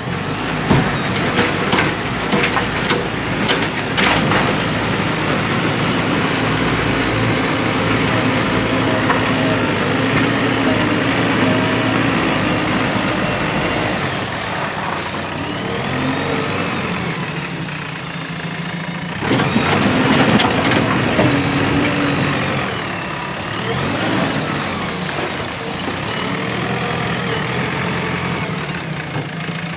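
JCB 3DX Plus backhoe loader's diesel engine running while the machine works, with several sharp knocks in the first few seconds and the engine getting louder for a couple of seconds about two-thirds of the way through.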